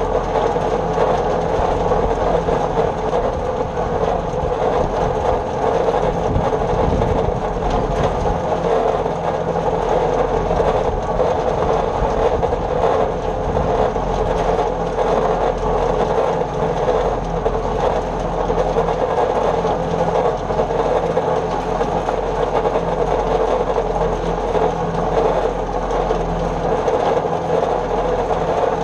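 New Holland Super 66 square baler running while baling hay: a steady, even mechanical clatter with a low engine hum underneath, unchanging throughout.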